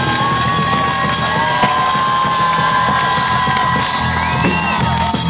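Live rock band playing loudly: electric guitars and a drum kit, with long held notes that bend in pitch.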